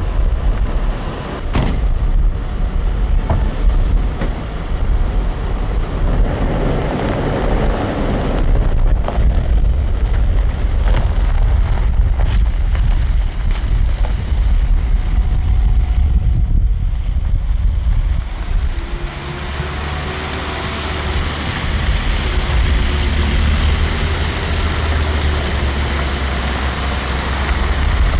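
Convoy of SUVs and minivans with engines running as they pull away on a wet, slushy road: a steady low engine rumble. From about two-thirds of the way through the rumble settles into an even hum with tyre hiss on the wet road.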